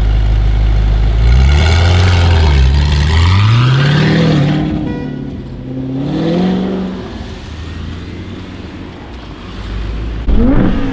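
Audi R8 engine idling, then revved up and down several times, then rising in pitch once more as the car pulls away and fades into the distance. Near the end a car engine suddenly revs loudly.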